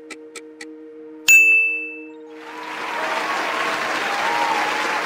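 Quiz-game sound effects: a countdown ticks about four times a second and stops, then a bright ding rings out a little over a second in, marking the timer running out. From about two seconds in, recorded applause with some cheering follows, signalling the correct answer.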